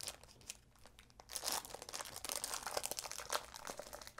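Fingers crinkling and tearing open the wrapper of a trading card pack: a few light crackles at first, then steady crinkling from about a second and a half in.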